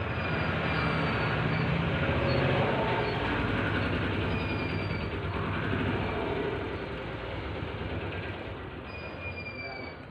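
A steady rumbling background noise with a few faint high squeals, easing off somewhat near the end.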